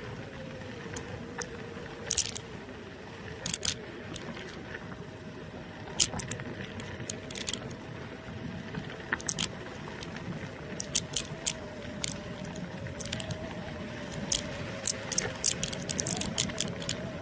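NIU KQi2 electric scooter riding over a rough gravel road: a steady motor whine that wavers slightly in pitch over the rumble of the tyres, with frequent sharp rattles and clicks from the scooter jolting over bumps, more of them near the end.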